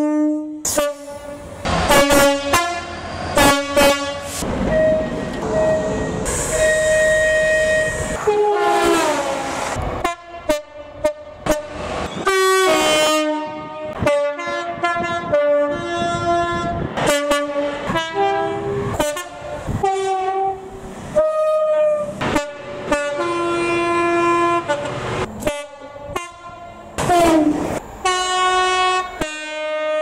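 Horns of several British trains, among them a Freightliner Class 66 diesel locomotive, sounding many two- and multi-tone blasts: mostly short toots switching between pitches, some longer held notes. Twice a long horn note falls in pitch as the train speeds past, about nine seconds in and near the end.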